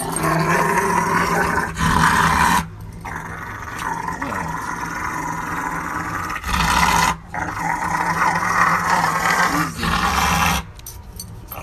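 Rottweiler making long, rough growl-howls with its head thrown back, in three drawn-out stretches, with short breaks and stopping shortly before the end.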